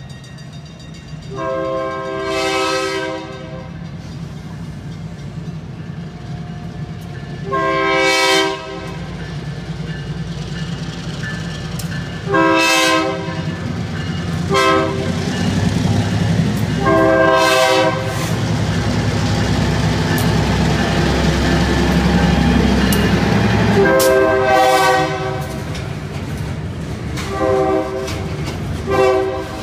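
A North Shore Railroad EMD SW1500 diesel switcher sounding its horn in a series of long and short blasts for the crossing, over the low rumble of the train rolling by. The rumble swells about halfway through as the locomotive passes, then continues as freight cars roll past.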